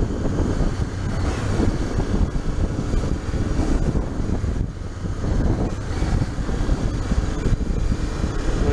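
Honda XRE 300's single-cylinder engine running steadily while riding through slow traffic, mixed with wind buffeting on the microphone.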